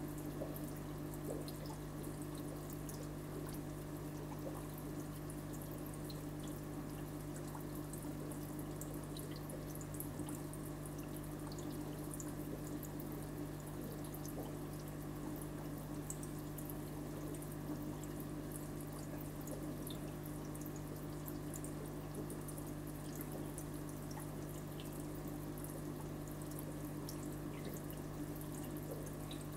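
Aquarium water trickling and dripping, with a steady low hum underneath and many small ticks.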